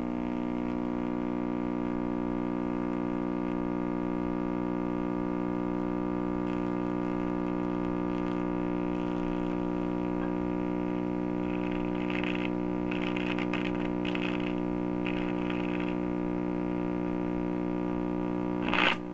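Tube communications receiver (Lafayette HA-63) putting out a steady hum through its speaker, a dense stack of even tones, on reduced variac voltage: the sign of dried-out electrolytic filter capacitors letting power-supply ripple through. Faint scratchy sounds come and go about two-thirds of the way in as the bands are tuned.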